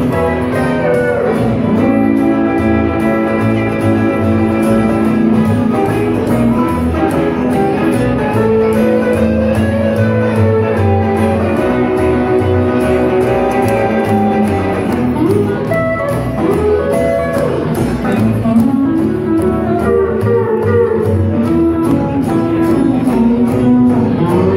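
Live rockabilly band playing an instrumental passage, with electric guitar, acoustic guitar and upright bass.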